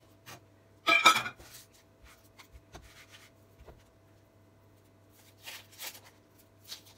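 Dry red-onion skin crackling and tearing as it is peeled off by hand, loudest in one short rasp about a second in, followed by a few faint rustles and taps near the end.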